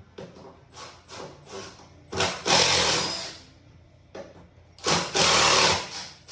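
A handheld power tool runs in a string of short bursts, then in two longer runs of about a second each, near the middle and near the end, as fasteners are worked out of wall framing.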